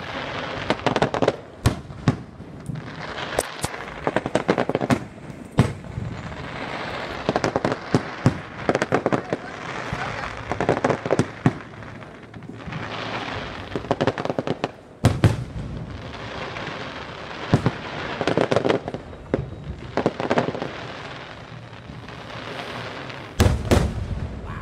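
Aerial fireworks display: many sharp bangs of shells bursting, often in quick runs close together, with the heaviest, deepest booms about fifteen seconds in and again near the end.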